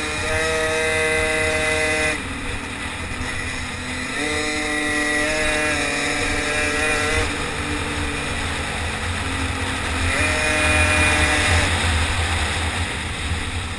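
A racing motor bicycle's small engine revving hard under the rider. Its pitch steps up, holds high for a couple of seconds, then falls away, three times: near the start, about four seconds in and about ten seconds in. Low wind rumble on the microphone runs under it throughout.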